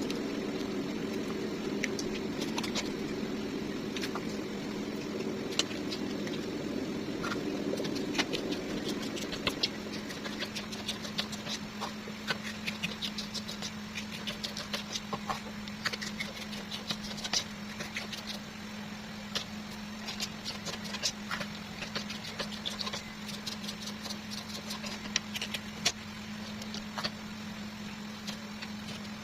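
Irregular short clicks and taps of a knife cutting bell peppers on a cutting board, over a steady low mechanical hum. A fuller hum under it fades out about ten seconds in.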